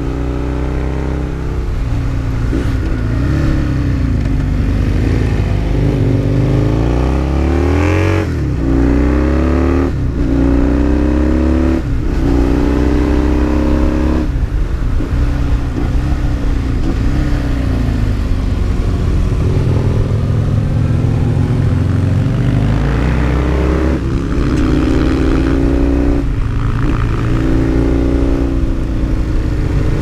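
Husqvarna Nuda 900's parallel-twin engine pulling hard through the gears. The pitch climbs and drops sharply at each upshift, in a quick run of shifts about a third of the way in and again near the end, with steadier running between.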